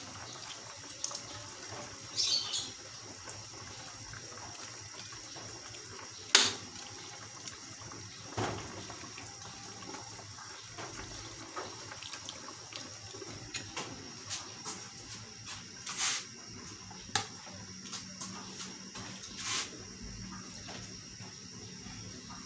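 Salmon soup broth simmering in a metal wok, stirred with a metal ladle. The ladle knocks and clinks sharply against the pan now and then.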